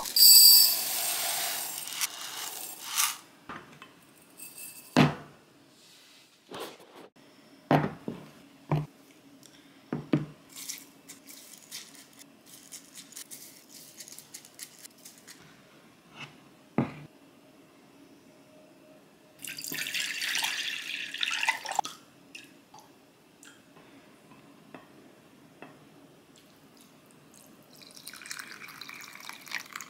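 Water running into a glass measuring cup at the start, then scattered sharp knocks and scrapes of a wooden spoon against granite stone pots as rice is spread. Near the end, soy-seasoned water is poured from the glass measuring cup over the rice in a stone pot.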